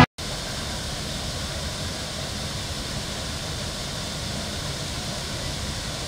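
Steady rush of a small waterfall cascading over rocks into a river pool, starting just after a brief gap.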